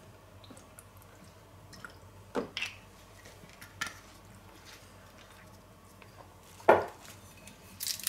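Small kitchen handling sounds: a few soft clicks and drips as Worcestershire sauce is shaken from a small glass bottle into a plastic tub. A sharper knock comes about two-thirds of the way in, as of the bottle being set down on a wooden board, then a few light clicks.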